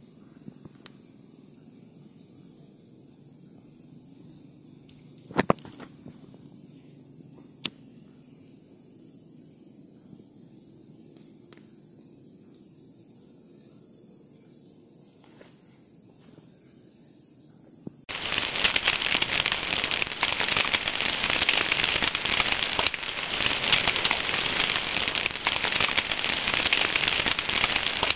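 Campfire at night with insects chirring steadily and a few sharp pops from the burning wood, the loudest about five seconds in. About eighteen seconds in it cuts to a much louder, dense crackling hiss from a fire of embers with fish grilling over it.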